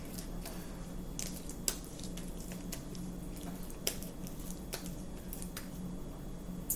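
Fluffy slime squished and pulled in the hands, with soft sticky squishing and three sharp little clicks.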